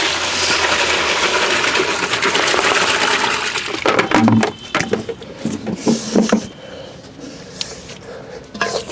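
Water poured from a plastic bucket into a large plastic tub, a steady splashing rush for about three and a half seconds. Then a few knocks and splashes as the bucket is tipped aside and a hand swishes the water in the tub.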